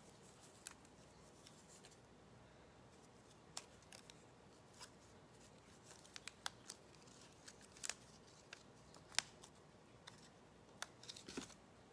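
Faint, scattered small clicks and light paper-handling ticks from cardstock craft pieces being handled and placed, with no regular rhythm. The loudest click comes a little past nine seconds in, and a short cluster follows near the end.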